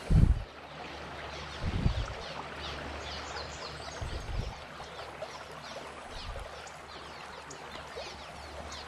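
Creek water running and babbling steadily. Three low thumps on the microphone break in, the loudest right at the start, then one near two seconds and a softer one near four seconds.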